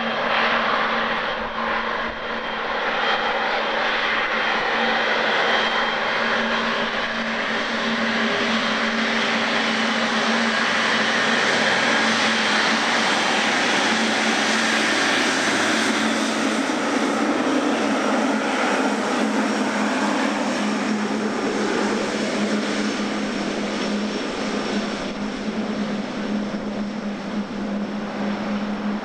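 Air Canada Boeing 777-300's twin jet engines running at taxi power as the airliner rolls past: a steady whine and rush of jet noise over a steady low hum, growing louder toward the middle and easing slightly as it moves away.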